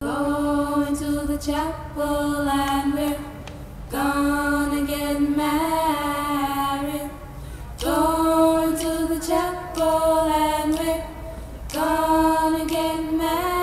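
Singing with little or no instrumental backing: long held notes in phrases that begin about every four seconds.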